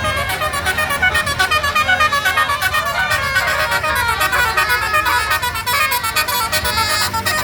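Basuri multi-tone musical vehicle horn playing a fast 'telolet' melody, a quick run of short high notes with no break.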